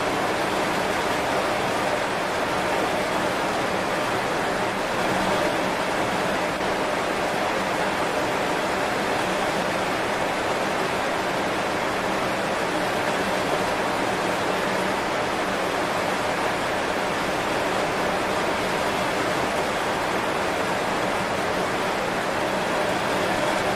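Heavy rain falling on banana leaves: a steady, even hiss with no single drops standing out.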